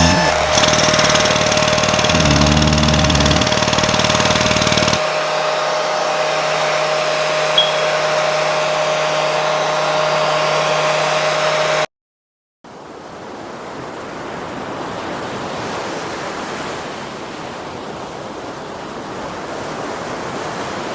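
A dense pile of layered sound effects: a steady hissing noise like a hair dryer under a held tone, with a low warbling sound in the first few seconds. About halfway through everything cuts out for half a second, then a steady hiss resumes alone.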